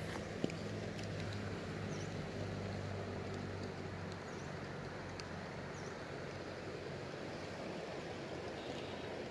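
Steady rush of a shallow stream with wind on the microphone, and a low hum that fades out about four seconds in.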